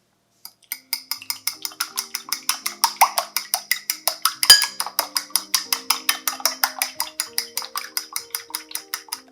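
Rapid, even tapping of a kitchen utensil, about five strokes a second, with one louder knock about halfway through, over background music with sustained low notes.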